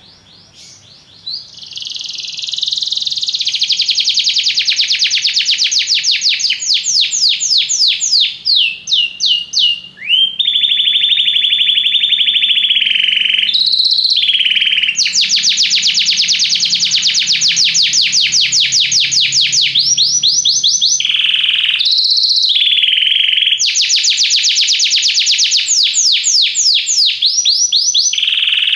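Domestic canary singing a long song of rapid trills and rolls, each run of quickly repeated notes giving way to the next, with a few short breaks. It starts softly about a second in and is loud within a couple of seconds.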